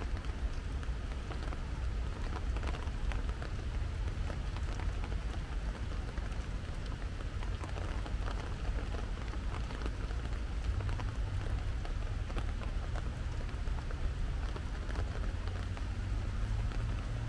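Rain falling steadily, with many separate drops ticking against a soft hiss, over a steady low rumble.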